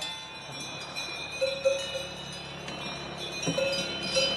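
Bells on grazing cows clanking irregularly, several bells ringing at different pitches, with a dull knock about three and a half seconds in.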